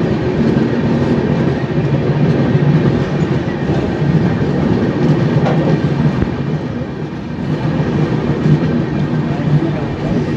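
Passenger train running at speed, heard from an open coach door: a steady loud rumble of wheels on the rails.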